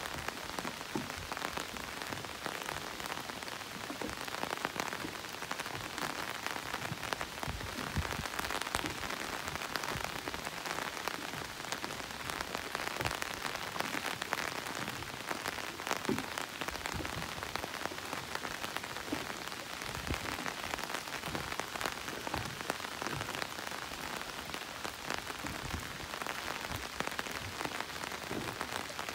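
Steady rain falling, an even hiss with many separate drops heard striking throughout.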